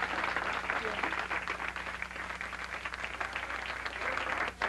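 Studio audience applauding, a dense patter of many hands that thins out toward the end, over a steady low electrical hum.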